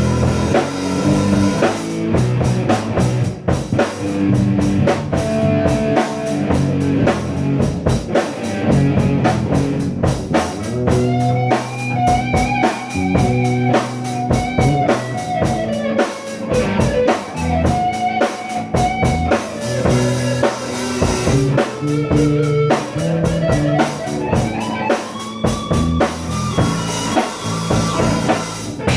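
Rock band improvising: drum kit keeping a steady beat under guitar, with a held, bending lead line coming in about eleven seconds in.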